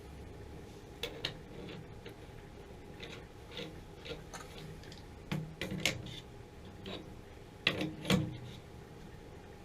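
Irregular small clicks and taps of parts and tools being handled while a new gas control valve and its adapter are fitted to a water heater, with a pair of louder knocks about eight seconds in.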